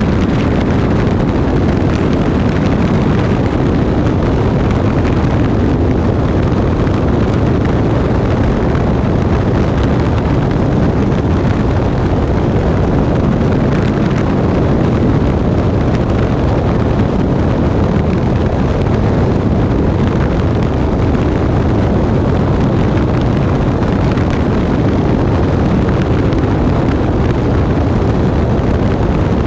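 Aeroplane in flight, heard from a camera mounted beneath it: a loud, steady drone of engine and rushing airflow, unchanging throughout.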